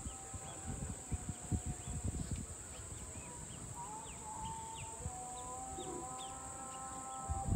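Rural field ambience: a steady high-pitched insect drone with many short bird chirps through the middle, and a held mid-pitched call in the second half. Low, irregular wind rumble on the microphone underneath.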